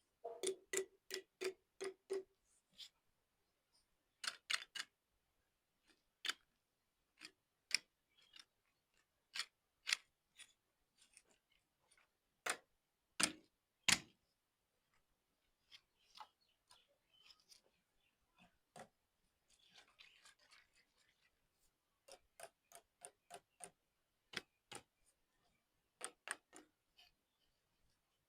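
Irregular series of sharp taps and clinks of glassware being handled and set down, the first with a brief ringing tone. A short soft hiss comes about two-thirds of the way through.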